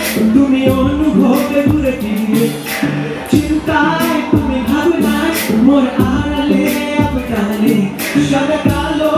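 A male vocalist singing in Bangla over a Bangla urban pop backing track, with a deep kick drum and sharp high percussion keeping the beat.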